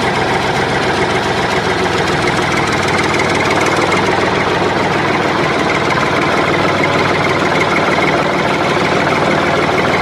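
Tractor engine running steadily with a fast, even clatter.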